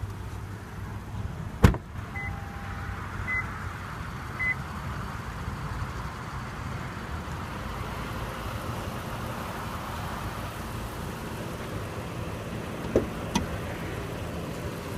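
2014 Lexus LS 460 F Sport's 4.6-litre V8 idling steadily. About two seconds in there is a sharp clunk, then three short electronic beeps about a second apart. Near the end come two small clicks as the hood latch is worked.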